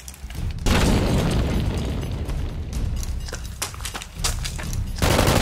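Boom sound effect about a second in, with a low tail that slowly fades over the next few seconds; another loud hit comes near the end.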